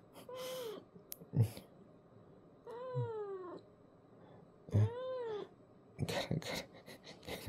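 A cat meows three times: a short meow just after the start, a longer one falling in pitch about three seconds in, and another near five seconds.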